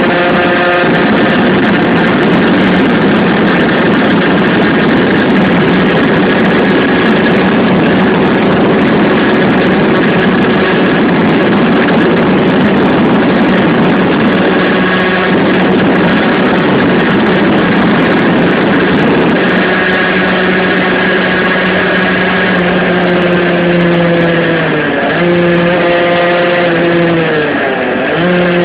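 Tuned 50cc two-stroke engine of a Rieju RS2 Matrix running hard under way, with a loud even rush over it for much of the time. Near the end the engine note holds steady, then twice dips briefly as the revs drop and come back up.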